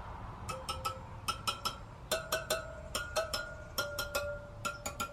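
Tensioned steel motorcycle wheel spokes pinged one after another, each strike giving a short metallic ring whose pitch differs a little from spoke to spoke, about five pings a second. This is a spoke-tension check by ear: a higher, brighter ring means a tighter spoke, and an uneven note marks a spoke that needs tightening or loosening.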